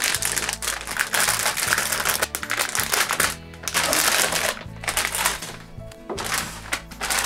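Plastic bag crinkling and rustling in bursts as a motherboard is pulled out of it, over background music.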